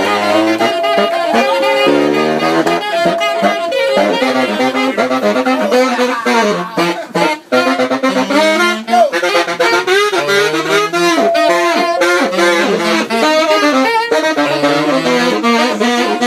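Saxophone playing a busy melodic line, the notes changing quickly, with a momentary break about seven seconds in.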